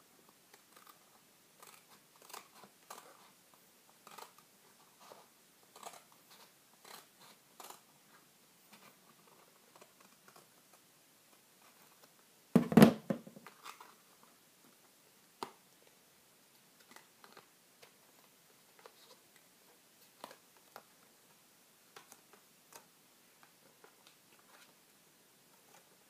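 Paper and scissors being handled close to the microphone: scattered soft rustles, snips and light clicks. About halfway through comes a single louder clatter, fitting scissors set down on a cardboard box.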